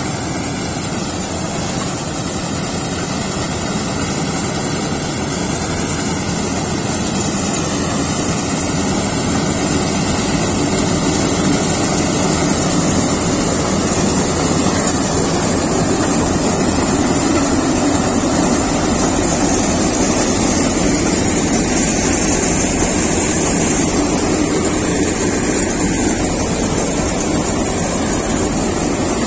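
Kartar 4000 combine harvester running and cutting ripe paddy: a steady, loud mechanical noise of engine and cutting and threshing machinery, growing louder over the first half as the machine comes closer.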